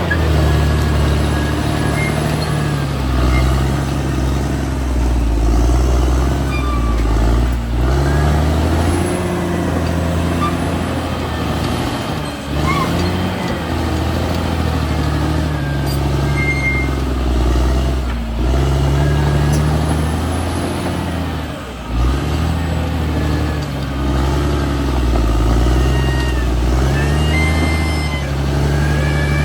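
Caterpillar D6R XL bulldozer's diesel engine working, its pitch rising and falling every few seconds as the load comes on and eases off, with occasional high squeaks over it.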